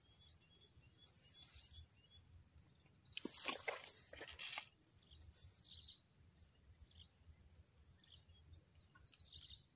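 Steady high-pitched drone of insects, with a brief rustle from about three to four and a half seconds in and a few faint chirps.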